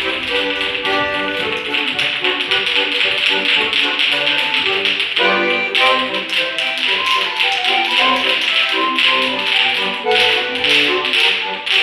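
Lively folk-style dance music with a rapid run of sharp tapping and knocking beats throughout.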